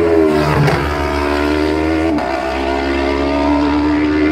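A racing superbike's engine running at high revs as the bike approaches, unseen, along the road. It gives a steady high-pitched note with brief dips in pitch about half a second and two seconds in.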